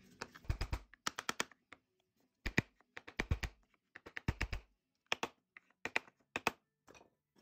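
Walnut and oak wooden parts being handled and fitted together on a workbench: a series of sharp clicks and taps, several with a heavier knock.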